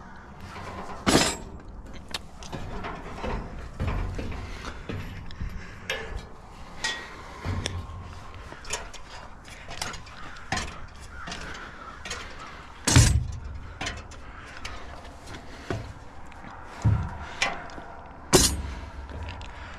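Climbing a caged steel ladder: boots and hands knocking on the metal rungs and tools clanking in a carried tool bag, as irregular metallic clanks and clicks with three louder bangs.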